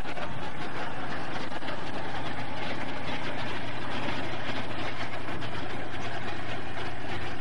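Soviet tank's engine running close by, a steady rumble under a dense noise, recorded on a camcorder's built-in microphone.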